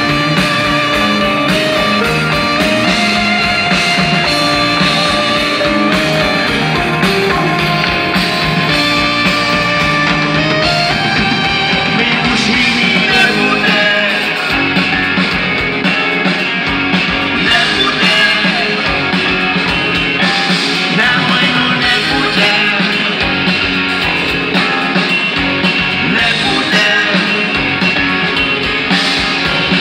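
Rock band playing live and loud through a PA: electric guitars, bass and drums keep a steady beat, with a man singing lead.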